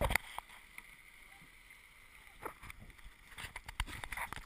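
Water splashing and rushing along a sailboat's hull as it sails, with sharp knocks near the start and again in the last second or so, and a quieter stretch in between.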